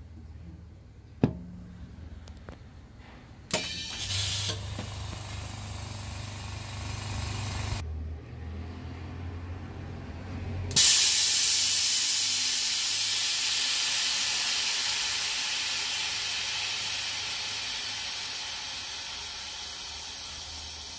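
A K18 Mini OCA laminating machine's bubble-remover chamber, pressurising with a loud hiss of compressed air that starts suddenly about 11 s in and slowly fades. Before it come a couple of sharp clicks and a low hum from the machine.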